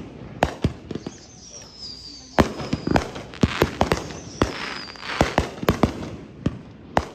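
Consumer firework cakes going off: a quick irregular series of sharp bangs with crackle, and several high whistles, each falling slightly in pitch.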